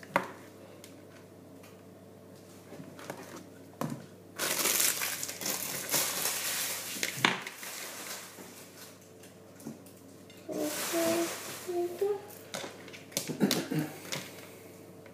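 Kitchen handling noises during food preparation: two stretches of crinkling and rustling, with a few sharp knocks and clicks.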